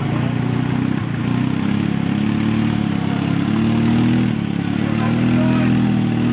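A motor vehicle's engine running steadily, its pitch stepping up and down several times as the throttle changes.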